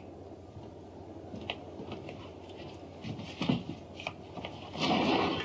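Elevator doors opening, with scattered clicks and clunks and a louder rushing noise for about half a second near the end, over a steady low hum.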